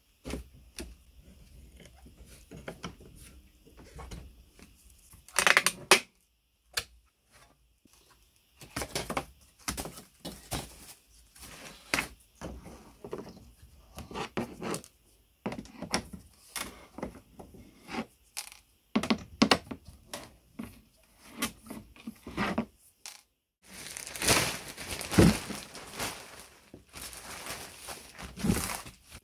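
Irregular knocks, clicks and scrapes of objects being handled and worked by hand, with a longer rough scraping stretch near the end.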